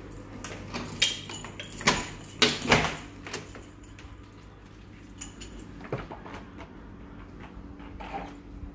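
A uPVC back door being opened: its lever handle and lock clack, then the door knocks several times, sharply, between about one and three seconds in. After that come only faint small taps.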